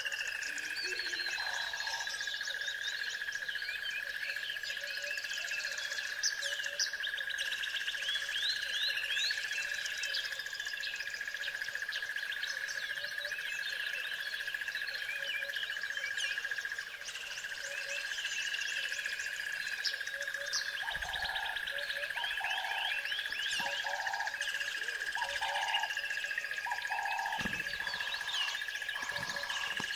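Birdsong: many birds chirping and singing over a steady high hum. Near the end a lower call repeats about five times, roughly once a second.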